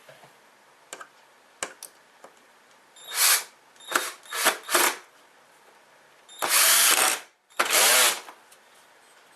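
Power drill running in four short bursts, then two longer runs of under a second each, as a wooden block is screwed in place; a few light clicks come before.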